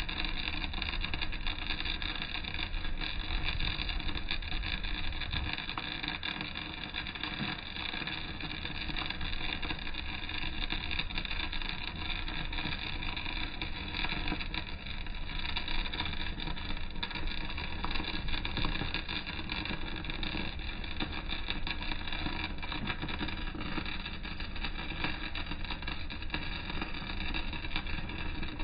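Electric arc welding a vertical-down seam on steel plate: the arc crackles and hisses steadily without a break.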